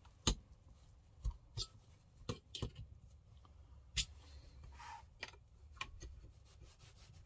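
Small hand tool and fingers clicking and tapping against the plastic and metal parts of an airsoft rifle's lower receiver while prying at the fire control unit's spring-loaded retaining pin. The clicks come at irregular intervals, the sharpest about four seconds in, over a low handling rumble.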